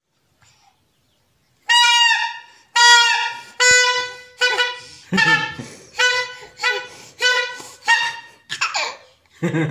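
A toddler blowing a green plastic toy horn: a string of about ten short toots on one note, coming about one every three quarters of a second. They start after about two seconds of quiet.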